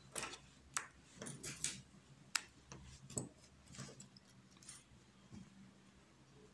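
Quiet handling sounds of a metal snap hair clip and felt pieces: irregular sharp clicks and taps, the strongest about two and a half seconds in, between soft rustles.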